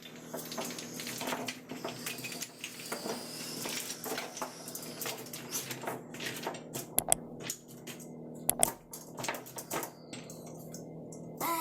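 Plastic Lego Technic pieces clicking and rattling as they are handled, with loud sharp snaps about seven and about eight and a half seconds in.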